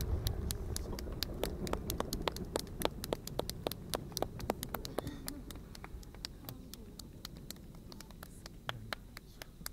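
The low rumble of large fireworks shells dying away after their bursts, fading steadily, with a stream of sharp little clicks, several a second, running on through it.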